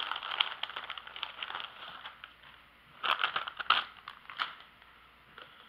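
Crackling, rustling handling noise as shredded cheese and its packaging are worked over a mixing bowl. After a lull, a short cluster of sharper clicks and taps comes about three seconds in.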